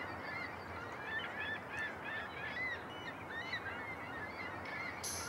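A flock of geese honking: many short calls overlapping and repeating throughout, over a faint outdoor hiss.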